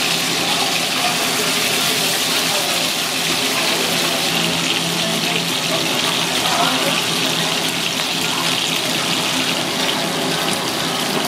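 Grouper fillet sizzling in hot oil in a frying pan, a steady frying hiss.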